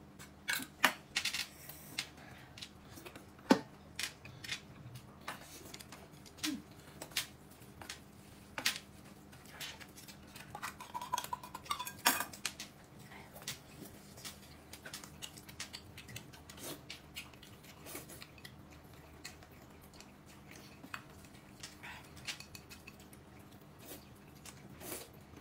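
Tableware clinking while eating: utensils knock against bowls and plates in light, sharp clicks at irregular intervals. The clicks come more often in the first half and thin out later.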